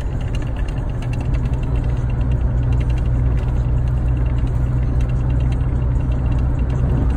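A car with an aftermarket Borla exhaust cruising at a steady highway speed, heard from inside the cabin: a steady low exhaust drone with road noise.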